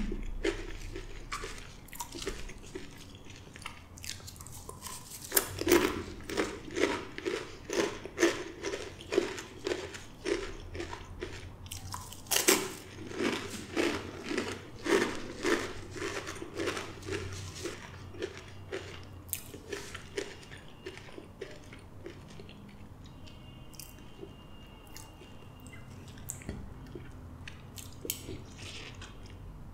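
Close-miked chewing of Blue Takis rolled tortilla chips: a run of crisp crunches, about two a second, from about five seconds in to about seventeen. After that, quieter soft chewing.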